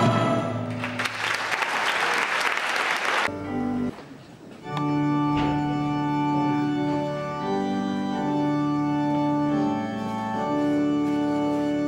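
Audience applause for about two and a half seconds as a choral song ends, cut off sharply. About five seconds in, an electronic keyboard begins playing held organ-like chords that change every couple of seconds.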